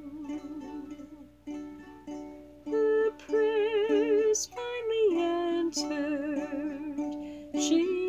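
A plucked string instrument plays a soft accompaniment. From about three seconds in, a woman's voice sings over it with a wavering vibrato.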